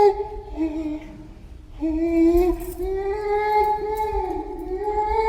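Gorilla sound effect: long, high-pitched whining calls that waver in pitch, with a short quieter lull about a second in before a long drawn-out call resumes.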